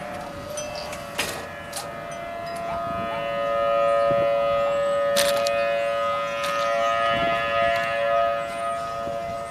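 Outdoor civil-defense warning siren sounding a steady tone, growing louder for a few seconds and then easing, as a rotating siren does. A few sharp clicks are heard alongside.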